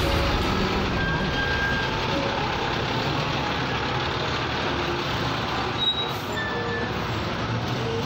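Slow-moving city traffic heard from a motorcycle: a steady mix of engine and road noise, with a bus running close alongside.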